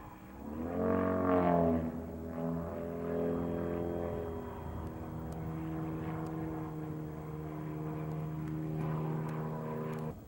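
Aerobatic propeller airplane's engine droning overhead. Its pitch swings up and then down about a second in, where it is loudest, then holds fairly steady. The sound cuts off suddenly near the end.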